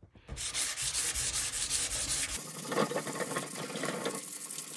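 Hand sanding with a 320-grit sanding block on a painted steel mower deck: repeated back-and-forth scraping strokes to knock down the crisscross pattern in the paint.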